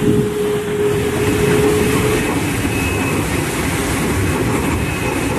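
Large ocean-racing trimaran driving at speed through heavy seas: a loud, steady rush of wind and water with spray breaking over the hull. A steady whine sounds through the first two seconds, then fades out.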